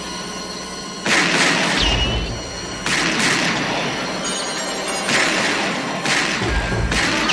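Tense film-score music with a steady drone, broken by a series of about five heavy crashes, the first about a second in, two of them with a deep boom.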